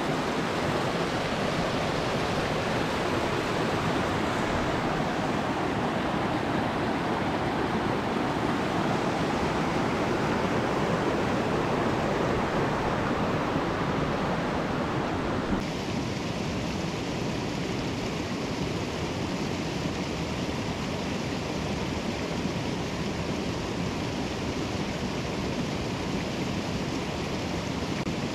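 Rushing mountain creek water, a loud, steady wash of noise with no distinct strokes; its tone changes abruptly a little over halfway through.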